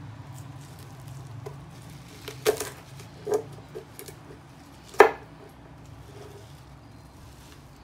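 Chef's knife cutting curly kale on a wooden cutting board: a few sharp knocks of the blade against the board, the loudest about five seconds in.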